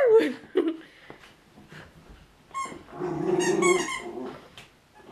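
Puppy growling as it mouths a plush burger toy, making the toy's squeaker give short high squeaks, once about two and a half seconds in and again over the growl a second later.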